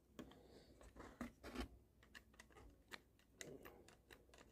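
Faint, irregular clicks and short scrapes of a screwdriver tip scratching packed lint off the plastic roller inside a ball mouse.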